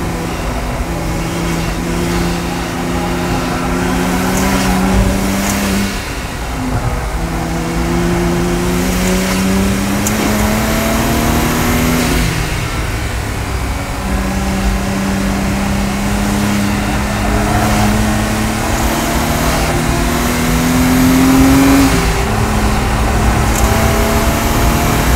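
Stage 3 Audi S4's engine and exhaust under hard acceleration on track. The revs climb steadily and drop sharply at each upshift, about six seconds in, about twelve seconds in and again near the end, over steady wind and road noise in the cabin.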